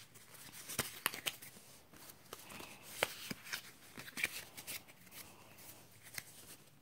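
A stack of Pokémon trading cards handled in the hands: faint rustling of card on card with scattered light, irregular clicks.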